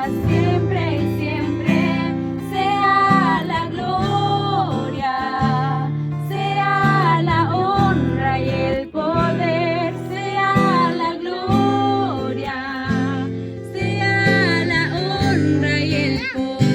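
Music: a song with a woman singing a melody over guitar and steady held chords.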